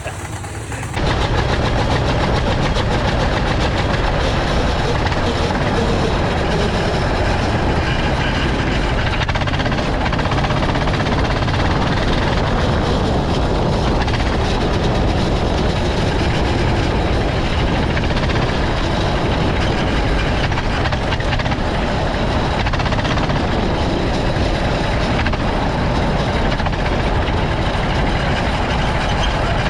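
Go-kart engines running on the track, a loud steady engine noise that starts suddenly about a second in.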